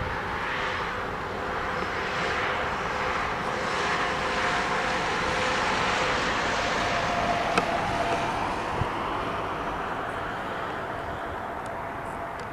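A train passing: a steady rushing roar that swells slightly in the middle and eases off toward the end, with a single sharp click about seven and a half seconds in.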